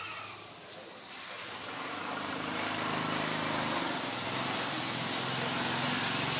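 A motor vehicle's engine and road noise, growing louder from about two seconds in as the vehicle approaches.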